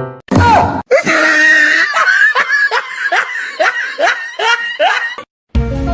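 Laughter: a quick run of short, falling 'ha' sounds, about two or three a second. It cuts off abruptly about five seconds in, and music starts just before the end.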